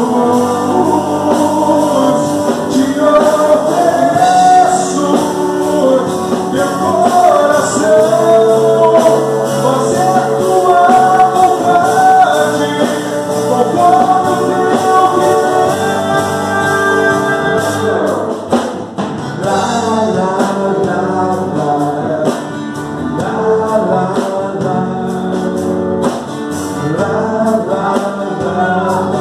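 Live gospel worship band playing, drum kit and electric and acoustic guitars, with a male lead singer over the top.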